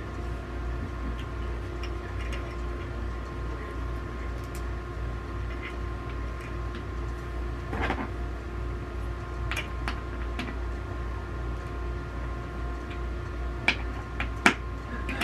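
Scattered light clicks and taps of small metal hardware being handled, a screw and washers being fitted into a chair footrest's metal bracket by hand, with the two sharpest clicks near the end. Under them runs a steady background hum.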